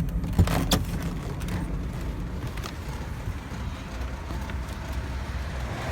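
Minivan engine running with a steady low rumble, with two sharp clicks in the first second.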